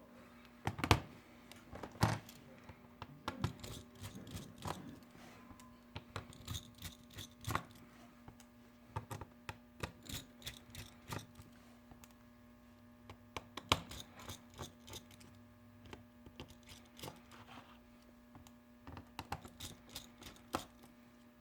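Scattered small clicks, taps and scratches of hands and tools handling a Samsung Rugby II phone's plastic housing and internal parts during disassembly, over a faint steady hum.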